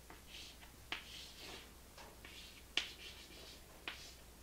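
Chalk writing on a chalkboard: about five sharp taps as the chalk strikes the board, with faint scratchy strokes between them.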